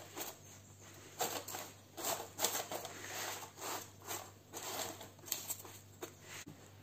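Silicone spatula pressing and scraping crushed Oreo cookie crumbs mixed with melted butter into a parchment-lined pan: soft, irregular scraping strokes, about two a second.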